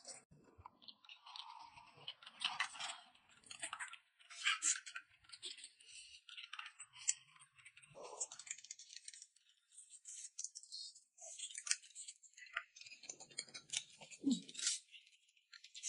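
Close-up eating sounds: chewing and slurping noodles, made up of irregular short, soft smacks and clicks.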